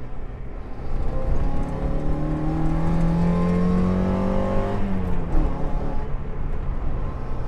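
Mazda MX-5 Mk1's 1.6-litre four-cylinder engine accelerating hard, heard from inside the cabin. Its pitch rises steadily for about four seconds, then drops sharply about five seconds in, and the engine carries on more evenly.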